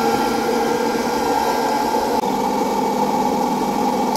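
Electric hot-air popcorn maker running: its fan and heater make a steady hum while the kernels heat up, with no popping yet.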